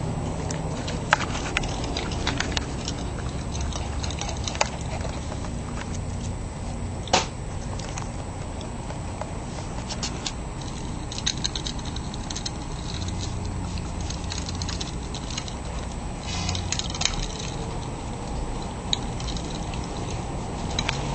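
A dog eating and nosing around a food bowl on a concrete floor: scattered sharp clicks and clinks over a steady low background noise.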